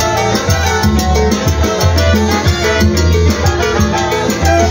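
Live Latin tropical dance music from a band with electric bass, drums and timbales, and saxophones, over a steady beat.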